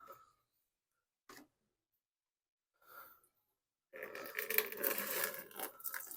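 Gasoline running out of the disconnected fuel line into a bucket, starting suddenly about four seconds in as a steady splashing stream, after a small click of the line being worked loose.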